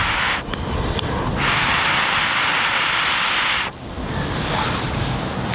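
Pocket bellows, a thin metal blow tube, hissing as breath is blown through it into a smouldering twig fire to feed it oxygen. One blow ends about half a second in; a second, longer blow follows and lasts about two seconds.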